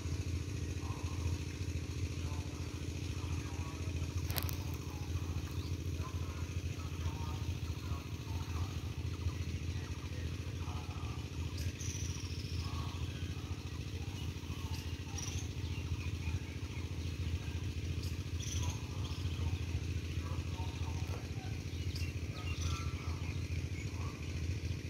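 A steady low engine-like hum runs without a break, with a single sharp click about four seconds in.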